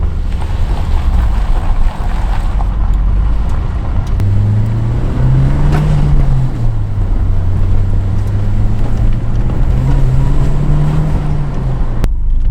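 Nissan 180SX's turbocharged SR20DET four-cylinder engine running while the car is driven, the engine note climbing in revs twice, about four seconds in and again about ten seconds in, each time dropping back.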